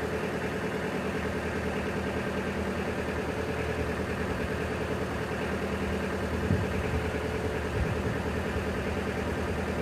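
Narrowboat's diesel engine running steadily at slow cruising speed, an even, unchanging rhythm.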